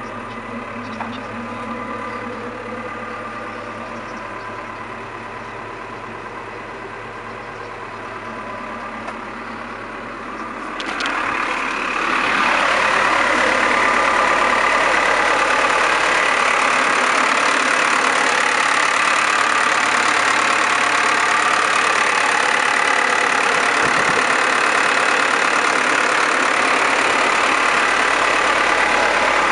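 Komatsu PC71-7 mini excavator's diesel engine running steadily. It becomes much louder and fuller about eleven seconds in and then holds steady.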